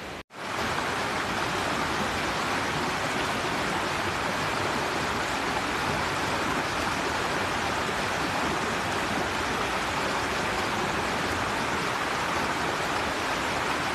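Shallow rocky river rushing over boulders in small rapids: a steady, even rush of water that starts abruptly after a brief silence at the start.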